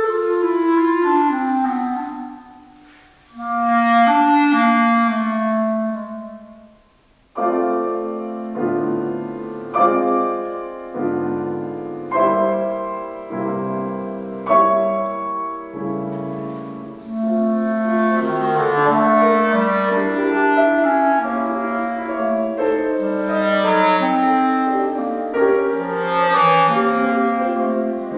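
Clarinet and Boston grand piano playing a classical duet. The clarinet plays held, singing phrases at first; about seven seconds in the piano takes over with struck chords that ring and fade, and the clarinet comes back in over the piano at about seventeen seconds.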